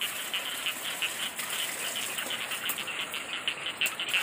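A steady rhythmic rattling, about five short pulses a second, fairly high-pitched.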